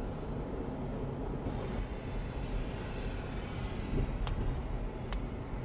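Car driving, with a steady low road and engine rumble and a couple of faint sharp ticks near the end.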